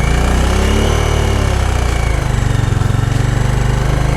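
Bajaj Dominar 400's single-cylinder engine idling, its revs briefly rising and falling in the first two seconds. The owner hears a slightly irritating noise coming from the engine and cannot say whether it is a major or a minor problem.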